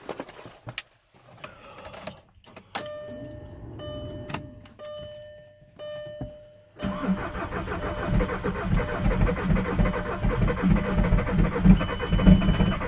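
Volkswagen Jetta TDI's 1.9-litre BEW diesel engine being cold-started with difficulty: it cranks for about four seconds before catching suddenly about seven seconds in, then runs with a rough diesel clatter.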